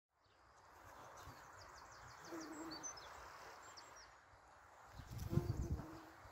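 Faint outdoor garden ambience fading in, with small birds chirping high and briefly. A low held note sounds twice, about two and a half seconds in and again about five seconds in, as the sound grows louder.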